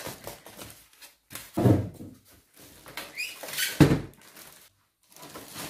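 Polystyrene foam packing pieces being pulled off a boxed printer: foam squeaking and scraping against foam and cardboard, with two dull thumps about one and a half and four seconds in. A plastic wrap rustle starts near the end.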